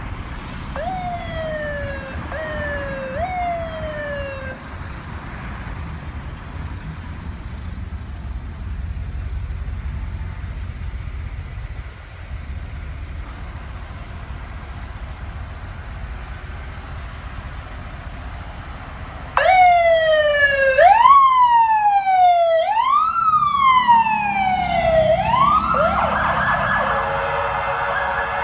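Touchmaster electronic siren on a Freightliner rescue unit. It gives three short up-and-down sweeps near the start, then a stretch of low engine and road rumble. About two-thirds of the way through come loud repeated sweeps that each rise quickly and fall slowly, changing near the end to a fast, steady warble.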